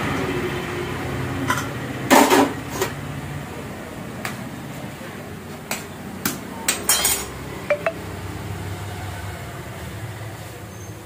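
Metal cookware clanking: a pressure cooker, its lid and a metal spoon knocking and scraping as steamed rice is stirred and scooped out of the pot. It comes as a string of separate knocks and clinks, the loudest about two seconds in, with a quick cluster around seven seconds and two short ringing clinks just after.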